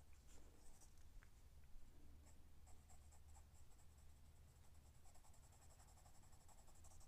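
Faint scratching of a pencil shading on drawing paper, in short irregular strokes, over a low steady hum.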